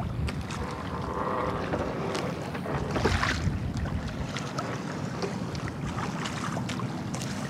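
Wind rumbling on the microphone over a small boat at sea, with water slapping and scattered knocks against the wooden hull, a louder rush about three seconds in, and the faint hum of other fishing boats' engines underneath.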